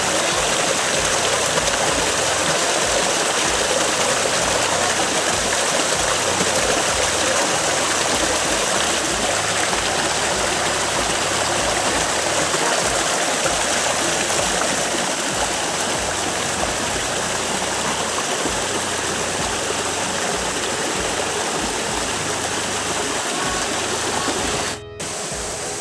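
Steady rush of water flowing over the rocks of a shallow freshwater stream. It drops out for a moment near the end.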